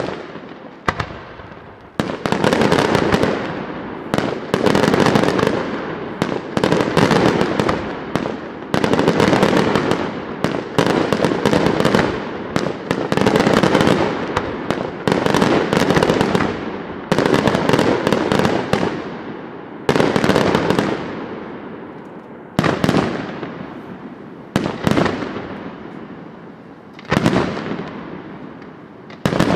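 Aerial firework shells bursting, bang after bang about every one to two seconds, each dying away slowly. In the last third the bursts come further apart.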